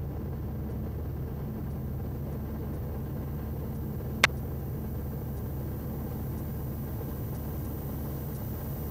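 ALTO NG light aircraft's Rotax 912 four-cylinder engine running steadily on the ground after warm-up, a low even drone heard from inside the cockpit. A single sharp click about four seconds in.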